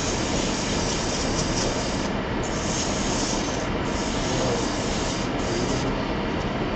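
Worn 80-grit sandpaper rubbing against the stem of a cherry goblet spinning on a wood lathe, over the lathe's steady running. The high rasp of the paper breaks off briefly a few times and stops about six seconds in.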